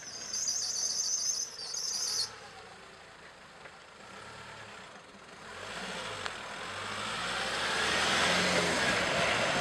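A high, fluttering trill for about two seconds, cut off abruptly. Then a Nissan Navara pickup approaches on a dirt track: engine and tyre noise on the gravel swell to a peak as it passes close, near the end.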